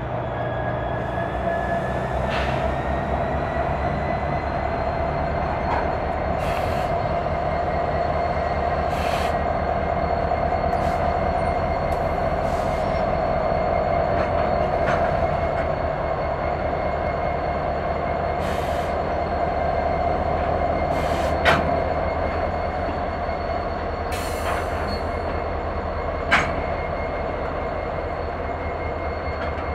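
Canadian National SD70M-2 diesel locomotive rolling slowly past, its engine running with a steady low drone and a thin high whine over it that rises a little at the start. A few sharp knocks from the train come through, the loudest two about two-thirds of the way in and near the end.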